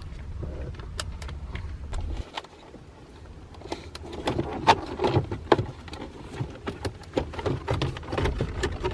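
Irregular clicks, knocks and rustling of hands working loose a car's shift boot and trim around the gear lever, with a low rumble that cuts off about two seconds in.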